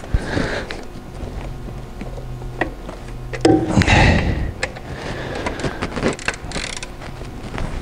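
Hands and tools working a drive belt back onto the engine pulleys of a Mercedes CLK 230 Kompressor: scattered clicks and knocks, with a louder scraping rush about three and a half seconds in.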